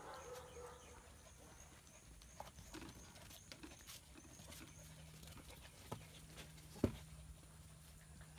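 German Shepherd puppies' paws and claws pattering and scuffling on a concrete patio as they play, faint scattered clicks with one sharper knock about seven seconds in.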